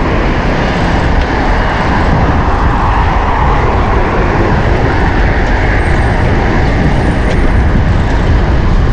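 Steady road traffic noise with a heavy low rumble, heard while riding a road bike along a busy town road.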